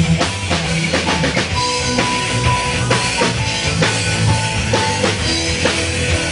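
Rock band playing live: a drum kit beats a steady rhythm under bass notes and electric guitar.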